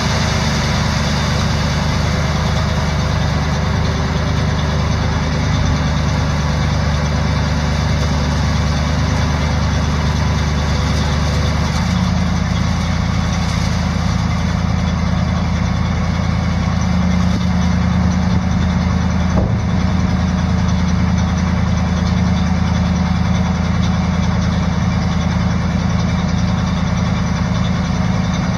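Gasoline V8 (International MV-404) of a 1976 International Loadstar 1700 grain truck, running steadily while its hydraulic hoist tilts the dump bed. The engine note shifts to a slightly higher, fuller tone about twelve seconds in and steps again a few seconds later. The seller lists the engine as weak.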